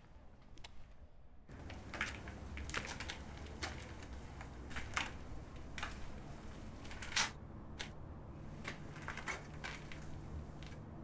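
Scattered light clicks and knocks of a person moving about, over a low steady background hum that gets louder about a second and a half in.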